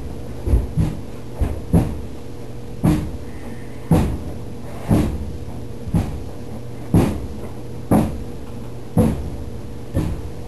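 Clothes dryer running with a steady hum and a sharp knock about once a second, a few quicker knocks in the first two seconds.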